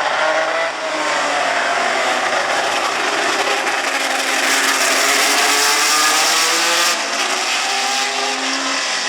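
Ferrari 512 M's 5-litre V12 racing engine at high revs, driving past at speed. The note's pitch glides up and down, and the sound is loudest around the middle.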